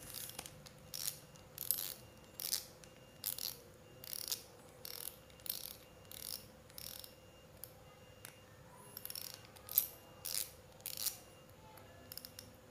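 Front drag knob of a Fugu Eiji 1000 spinning reel being turned by hand, clicking about once every second or so, as it is unscrewed to take the spool off.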